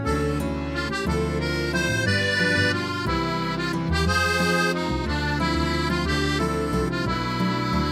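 Instrumental background music: a melody of held notes over sustained chords that change about once a second.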